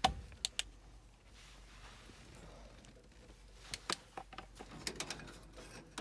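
Sharp clicks and light metallic clinks of hand tools and parts being handled against a gas furnace's sheet-metal cabinet: a few at the start and a cluster about four to five seconds in.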